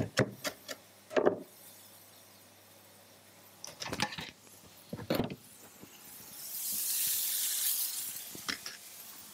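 A few knife chops and knocks on a wooden chopping board, then clinks of utensils and a pan at the stove. A hissing sizzle of chicken pan-frying swells up for a couple of seconds near the end.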